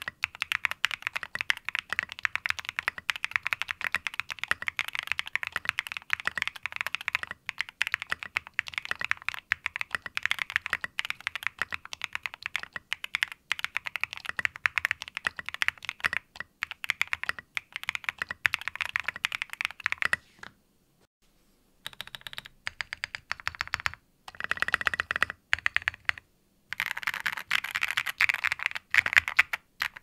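Fast typing on a ZIPPO custom mechanical keyboard with SA-profile keycaps on JWK SOTC switches, an aluminium plate and PORON and IXPE foam inside, in a rapid stream of key clacks. The typing stops briefly about two-thirds through, then resumes in uneven runs and grows louder near the end.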